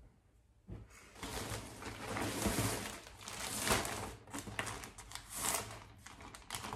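Packaging crinkling and rustling as clothes are unpacked and handled, starting about a second in, with many sharp crackles.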